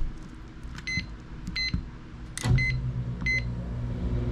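Marine air conditioner switching on: four short electronic beeps from its control, then about two and a half seconds in a click and a steady low hum as the unit starts running.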